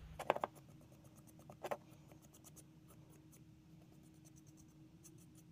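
Faint brushing of a small artist's paintbrush laying paint onto a small birdhouse roof, with a few light taps in the first two seconds over a low steady hum.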